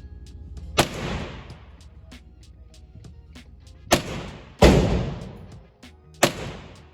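Four handgun shots, one and then three more a few seconds later, the third the loudest, each ringing out with a long echo behind it.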